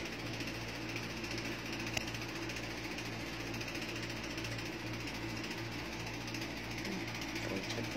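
Steady low mechanical hum with a faint regular throb, and a single light click about two seconds in.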